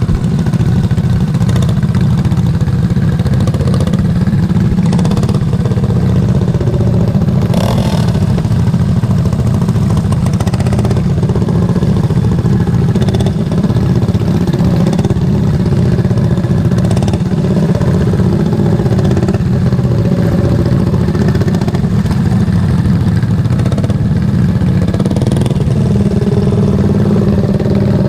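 Racing lawn mower engine running hard and steady, with a few brief knocks over the top.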